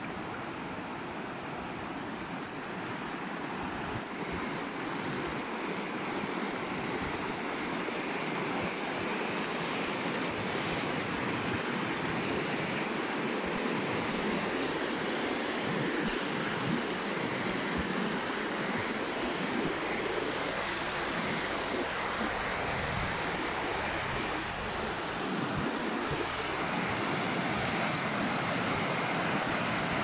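Rushing water of a stream, a steady noise that grows slowly louder.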